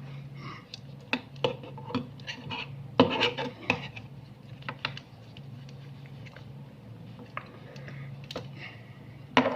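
Sunglasses and their cloth pouch being handled: scattered light plastic clicks and taps, the sharpest about three seconds in, over a steady low hum.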